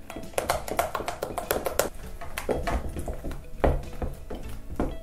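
Wooden spatula stirring a wet yeast, sugar and milk batter in a glass bowl, clacking and scraping against the glass in a quick, irregular series of taps. The batter is being mixed until it turns sticky and the yeast dissolves.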